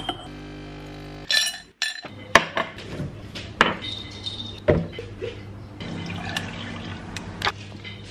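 An espresso machine's pump buzzing steadily for about a second, cutting off. Then a run of clinks and knocks of ice, glass and cups, with liquid being poured, as an iced coffee drink is put together.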